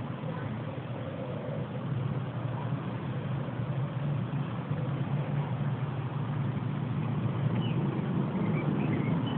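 A steady low rumble, with a few faint short high chirps near the end.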